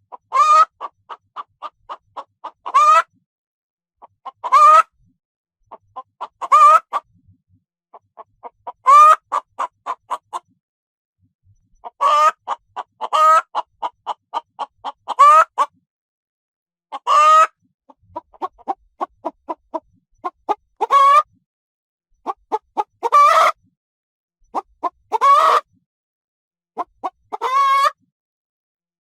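Hen cackling: runs of short quick clucks, each ending in a long, loud squawk, repeated over and over about every two seconds, with silence between.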